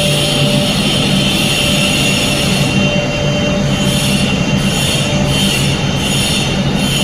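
Building fire alarm set off by a smoke detector test: a steady high-pitched alarm tone over a loud, continuous rush of machinery noise, with a faint rapid pulsing in the top end from about three seconds in, roughly two pulses a second.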